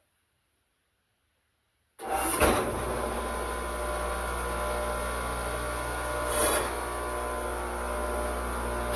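Silence, then about two seconds in a table saw is suddenly heard running steadily with a motor hum. There are two brief louder surges of hiss, one just after it starts and one near the end.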